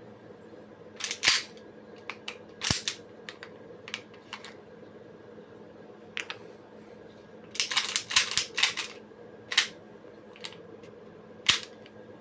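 WE F226 gas blowback airsoft pistol being worked by hand: irregular sharp metallic clacks of its slide and action, singly and in quick runs about two thirds of the way through.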